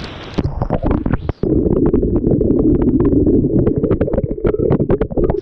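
Waterfall water pouring directly onto the microphone, heard as a heavily muffled, dense rumble full of small knocks and splashes, after a brief bright hiss of falling water at the start. The sound cuts off suddenly at the end.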